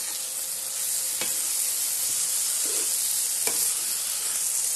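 Prawns and onion-tomato masala sizzling steadily in hot oil in a kadai while a perforated steel ladle stirs them. The ladle knocks against the pan twice, about a second in and again near three and a half seconds.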